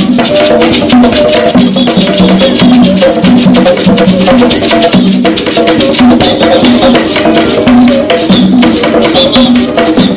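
Live African-style percussion band playing: hand drums and a fast, steady shaker rattle over a repeating tune.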